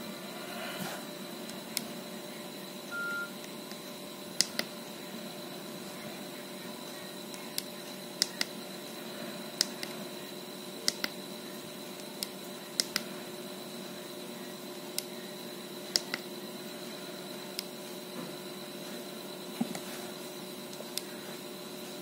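Nokia 6820 keypad and navigation buttons clicking, about fifteen sharp, irregularly spaced clicks as the phone's menus are scrolled through, over a faint steady hum. One short beep about three seconds in.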